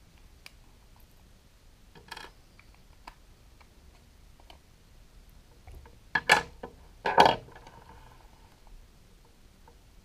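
Plastic housing of a cordless LED work light being handled and opened by hand: light clicks and a brief rustle, then two loud plastic clatters about six and seven seconds in.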